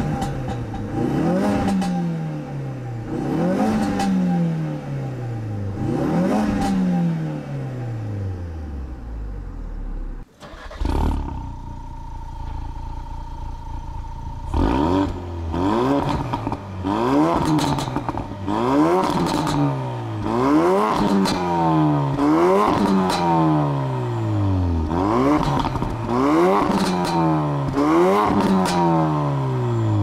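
2017 Ford Focus RS's 2.3-litre turbocharged four-cylinder being revved repeatedly while standing still, each rev rising quickly and falling away more slowly. It is heard first from inside the cabin. After an abrupt cut about a third of the way in, it idles steadily for a few seconds at the twin tailpipes and is then blipped again, more often, about every two seconds.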